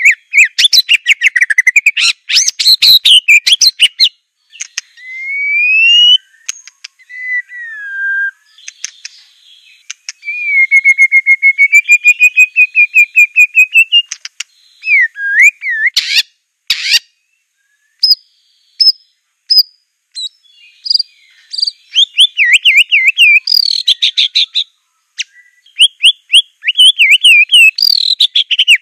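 White-rumped shama (Aceh murai batu) singing a long, varied song of clear whistles that glide up and down, quick chattering trills, and about ten seconds in a run of rapid notes slowly rising in pitch.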